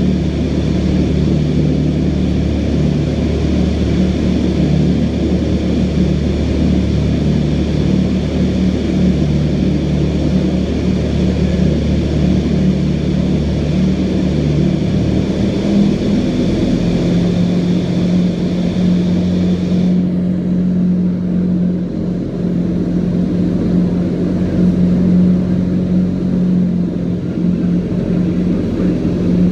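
Vertical wind tunnel running: the steady rush of air and hum of its big fans, loud and continuous. The low fan hum changes pitch about halfway through, and a few seconds later the hiss of the air thins out.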